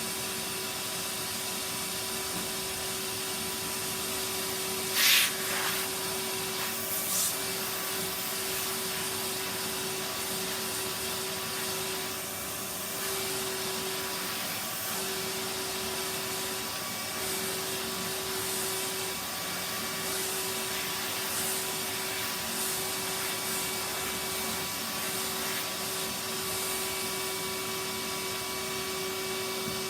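Vacuum cleaner running steadily with its brush attachment working over a fabric sofa, a brief louder noise cutting through about five seconds in and a smaller one a couple of seconds later.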